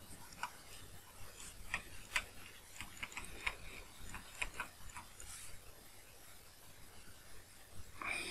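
A stylus writing on a drawing tablet: faint, irregular clicks and light scratches of the pen tip as words are handwritten.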